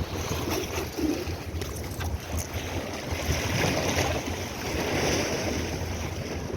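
Wind on the microphone over a steady low rumble and sea water, with a few faint knocks.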